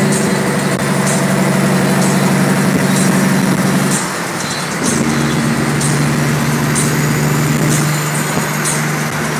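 Diesel engine of a 1994 Peterbilt semi truck running at highway speed through its chrome stacks, heard from an adjacent lane over road and wind noise. The drone dips about four seconds in, then returns at a lower pitch.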